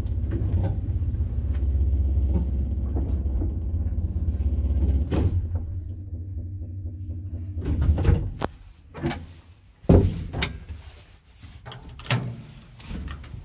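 A two-speed 1960s ZUD passenger lift running with a steady low hum and rumble, stopping with a click about five seconds in. In the second half come clicks and several sharp bangs of its doors being opened and shut.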